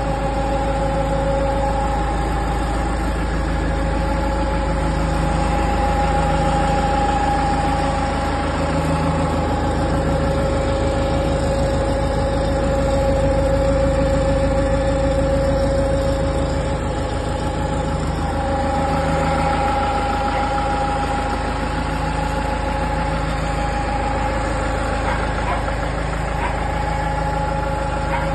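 Kubota L1-452 compact tractor's three-cylinder diesel engine idling steadily.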